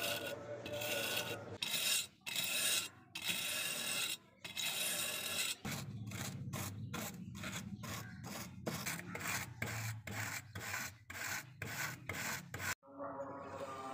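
Wire brush scrubbing flaking rust off the steel of an old spring scale in repeated rasping back-and-forth strokes. The strokes come faster from about midway, at roughly two a second, and stop abruptly near the end.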